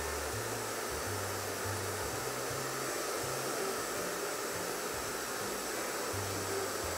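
Bio Ionic handheld hair dryer running steadily, a constant rush of blown air.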